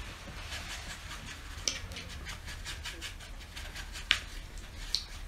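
Paintbrush swishing and stirring watery paint mixed with washing-up liquid in a plastic palette well: faint rubbing, with a few light clicks of the brush against the palette, the sharpest about four seconds in.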